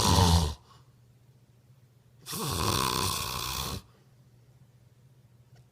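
Snoring: the end of one snore in the first half second, then, about two seconds in, a second full snore lasting about a second and a half.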